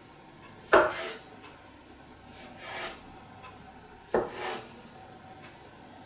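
A metal bench scraper chopping through a roll of dough onto a wooden cutting board: two sharp knocks of the blade on the wood, about three and a half seconds apart, each followed by a short scrape, with another scrape between them.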